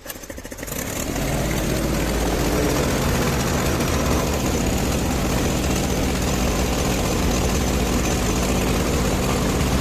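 Nissan UD truck's diesel engine starting up in the first second, then idling steadily.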